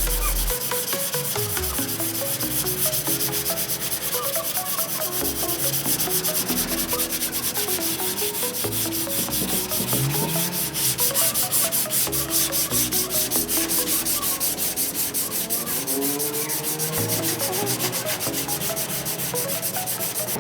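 Sanding of a car hood panel: a continuous scratchy rub made of quick, evenly repeated strokes.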